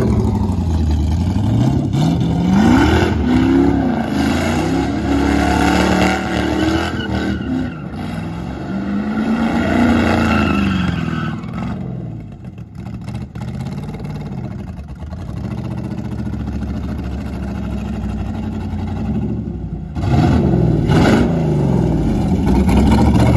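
Carbureted V8 race car with open zoomie headers revving hard through donuts, its pitch rising and falling again and again as the rear tires spin. It settles to a lower, steadier run about halfway through, then revs loud again near the end.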